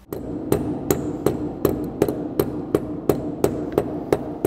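Mallet blows tapping a new ABS sensor ring onto a VW/Audi rear wheel hub: a steady, even series of about a dozen sharp strikes, roughly three a second, seating the ring on the hub.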